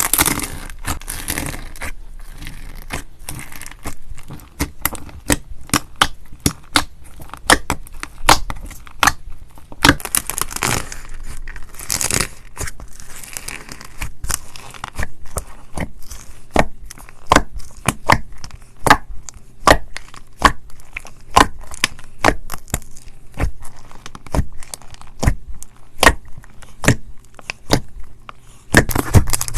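Hands working slime: a stream of irregular sticky pops and clicks as it is squeezed and pulled, with stretches of crackly tearing noise as it is stretched.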